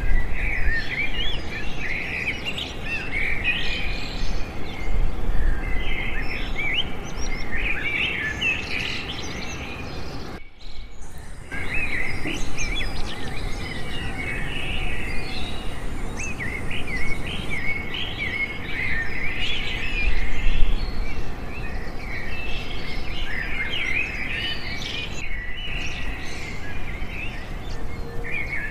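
Many small birds chirping and chattering at once, a dense, continuous chorus of short high calls over a low background rumble; it breaks off for about a second around ten seconds in.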